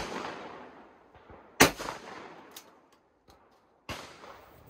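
Shotgun shot about one and a half seconds in, a sharp crack with a fading echo, coming just after the fading tail of a first shot. A sharp snap follows near the end.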